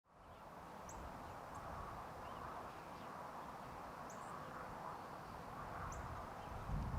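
Outdoor ambience: short, high bird chirps every second or two over a steady background hiss, with a low rumble building near the end.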